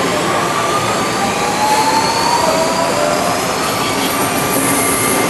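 Electric commuter train pulling out: a steady rumble of wheels on rail with thin whines that slowly rise in pitch as it gathers speed.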